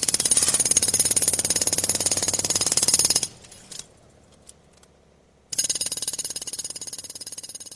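Pneumatic jackhammer hammering in a rapid, even stream of blows that stops about three seconds in. After a short pause with a few faint clinks, it starts again and fades away.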